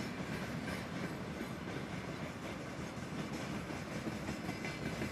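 Railway tank cars of a freight train rolling past: a steady rumble of steel wheels on rail, with the clack of wheels running over rail joints.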